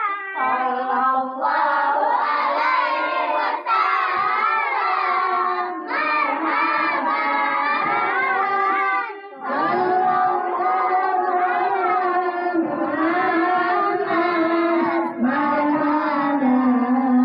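A group of children singing together in unison, with a short break about nine seconds in.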